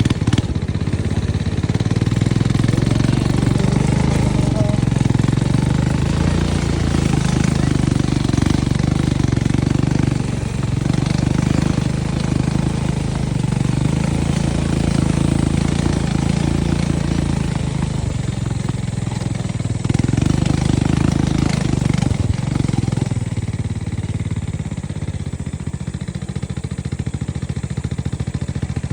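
ATV engine running as the quad is ridden, its note stepping up and down several times as the throttle changes.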